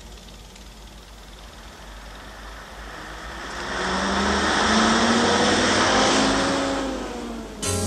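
City bus driving past close, its engine drone and road noise swelling about halfway through and fading away near the end.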